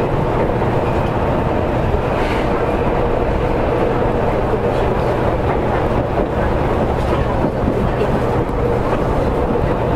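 Interior running noise of a Seibu 2000 series electric train: a steady rumble of wheels on rail with a faint steady hum, as it runs into its terminal station.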